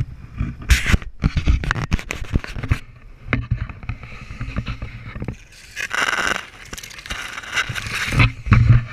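Scraping, rustling handling noise on a hand-held camera with many irregular knocks, as it is moved low through grass and brush.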